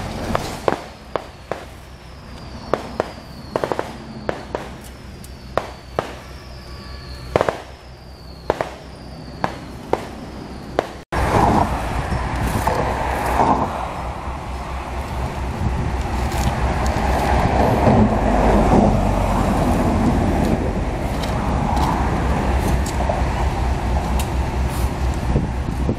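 Steel shovels and rakes scraping and tossing loose asphalt patching mix on road pavement: sharp, irregular scrapes and clicks. About eleven seconds in the sound cuts to a louder, denser raking noise over a steady low rumble.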